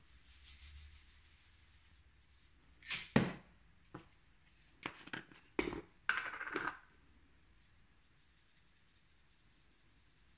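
Kitchenware knocking and clinking as it is handled: a sharp knock about three seconds in, a few more between five and six seconds, and a short rasp just after six seconds.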